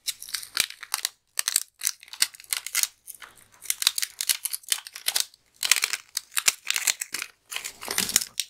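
Thin clear plastic bag crinkling and crackling as it is handled and opened by hand, in a fast, irregular run of crackles with brief pauses.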